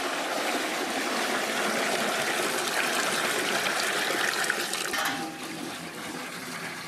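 Stirred biodynamic horn-manure preparation, a brown liquid, poured from a metal pot through a cloth filter into a barrel: a steady splashing pour that eases off to a quieter trickle about five seconds in.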